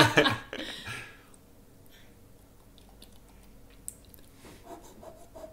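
A young child making a loud, noisy mouth sound that ends about a second in, followed by faint mouth clicks and small vocal sounds.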